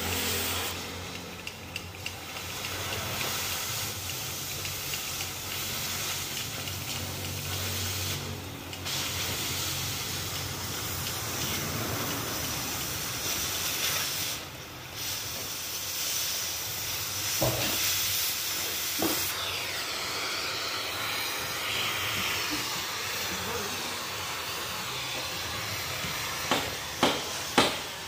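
Oxy-acetylene cutting torch hissing steadily as it burns through a steel truck chassis frame rail. Near the end, a run of sharp knocks, about two a second.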